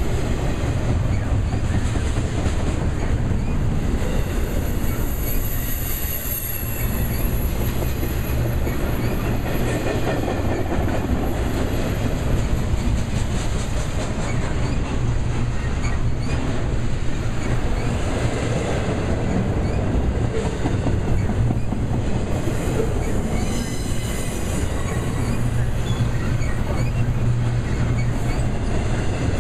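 Double-stack intermodal container well cars rolling past at track side. Steel wheels keep up a steady rumble on the rail, with clicking over the joints and a high wheel squeal about five to seven seconds in and again near twenty-four seconds.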